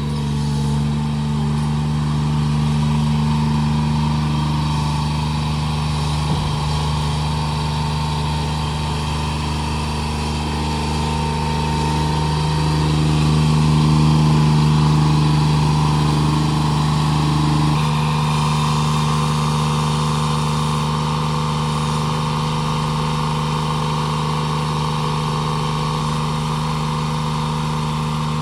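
Steiner 430 tractor engine running at a steady speed as the tractor drives up onto a wooden-deck trailer, a little louder around the middle.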